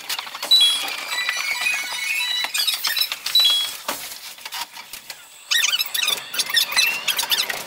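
Cab sounds of a Chiba Urban Monorail 0 Series train played back at five times speed: while it stands at the station, short high-pitched chirps and squeaks with scattered clicks. About five and a half seconds in, a dense, fast clicking chatter begins as the train pulls away.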